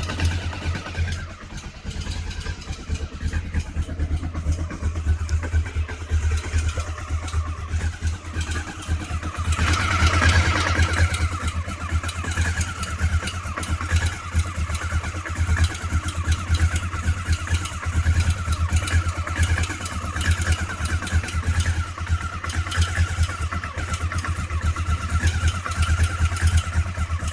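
Honda CB500 motorcycle engine running cold, with a steady pulsing exhaust beat. It grows louder for a couple of seconds about ten seconds in, then settles back to the same steady running.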